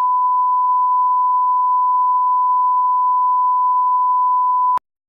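Steady 1 kHz line-up test tone of the kind played under broadcast colour bars, one unchanging pitch that cuts off suddenly near the end.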